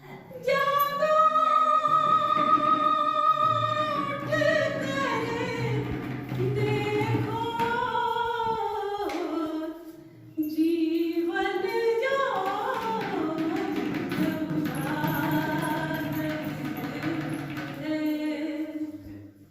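A woman singing a Hindi song in long, drawn-out notes, with a brief break about halfway through.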